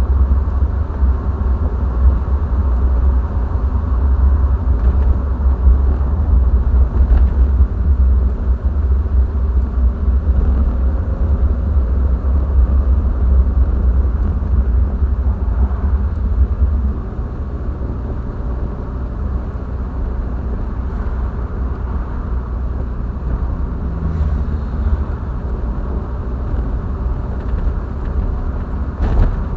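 Triumph TR7 with a 4.6-litre V8 being driven, its engine and road noise a steady low rumble that eases off somewhat about halfway through.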